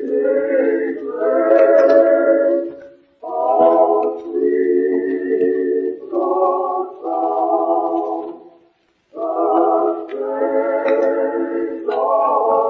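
Singing: a vocal melody of held notes in short phrases of a second or two, with two brief breaks.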